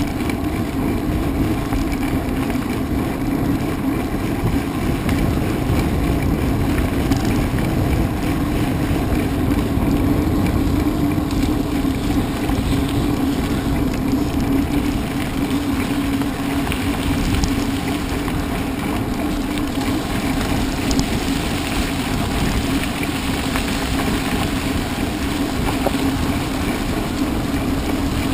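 Steady rumble of a mountain bike being ridden at race pace: tyres rolling over the trail and wind buffeting the microphone, with no letup.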